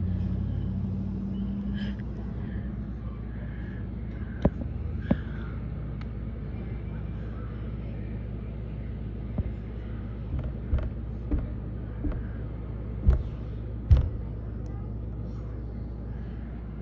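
A car's engine hum fading as it drives off in the first couple of seconds, over a steady low rumble. Scattered sharp clicks and knocks follow, the loudest two about 13 and 14 seconds in.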